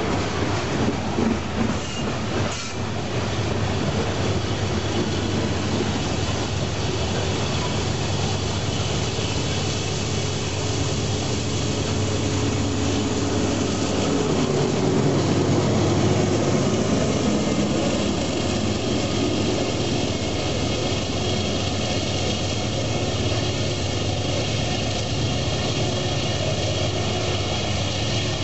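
Freight train of covered hopper cars rolling past at speed: the steady noise of steel wheels on the rails, somewhat louder about halfway through.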